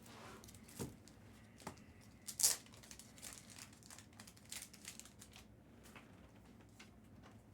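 Sports card packaging being opened: plastic wrapping crinkling and tearing in short, irregular crackles, the loudest about two and a half seconds in.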